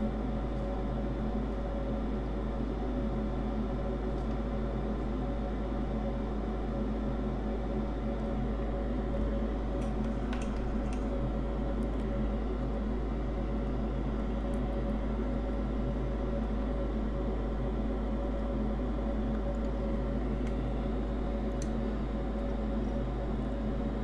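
Steady machine hum: several fixed tones over a fan-like whir, unchanging in level, with a few faint ticks about ten seconds in and near the end.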